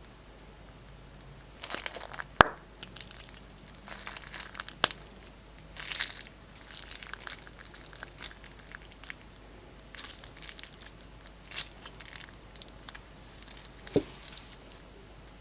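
Glossy slime being squeezed and worked by hand, in irregular crackly, squishy bursts with a few sharp pops.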